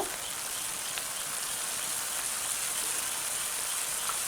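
Steady sizzling hiss of a sour tamarind broth simmering in a pan on a lowered flame.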